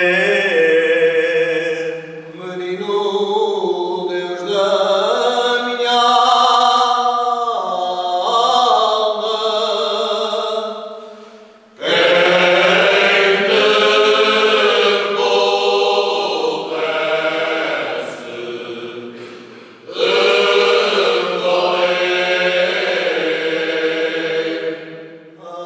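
Male choir singing Cante Alentejano unaccompanied, in slow, drawn-out phrases. The singing fades twice, and each time the full chorus comes back in loudly, about twelve seconds in and again about twenty seconds in.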